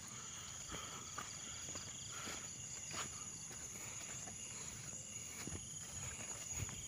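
Night insects, crickets, keep up a steady high buzz, with a faster pulsing trill under it for the first few seconds. Faint footsteps rustle through grass and weeds.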